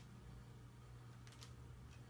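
Faint clicks of a plastic DVD case being handled and opened, a few small clicks about two thirds of the way in and one more near the end, over a steady low hum.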